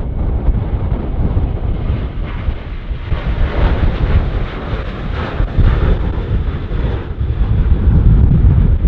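Strong gusty wind buffeting the microphone, with the jet engines of a Boeing 737-800 heard through it, swelling about three seconds in and fading again near the end.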